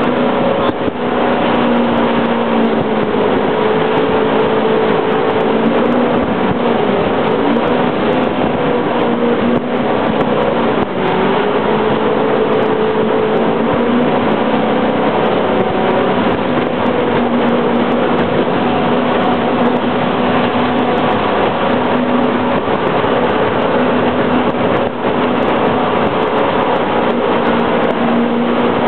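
Jet boat's engine running at speed with a steady drone that shifts slightly in pitch now and then, over the rush of water past the hull.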